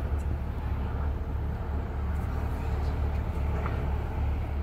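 Steady low rumble of a twin-engine widebody jet airliner climbing out overhead after takeoff.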